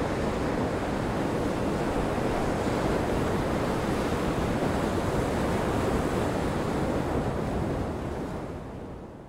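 Breaking surf in a gale, with wind: steady noise that fades out over the last two seconds or so.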